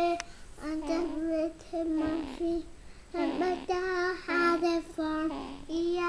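A young child singing a tune in short, held phrases with brief breaks between them.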